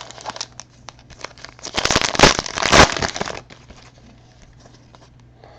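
A foil trading-card pack wrapper crinkling as it is torn open and handled. A few light clicks come first, the crinkling is loudest for about a second and a half in the middle, and faint rustling follows.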